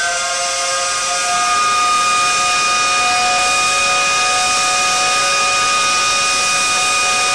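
Sustained electronic drone: several steady tones held together as one chord over a loud, bright hiss.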